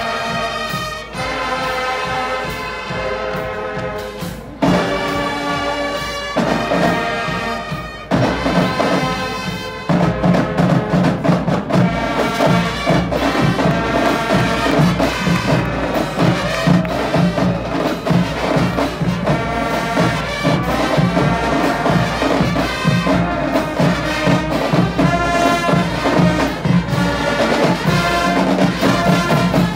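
School brass-and-percussion marching band playing: held brass chords with short breaks at first, then from about ten seconds in a louder, fuller passage over a steady drum beat.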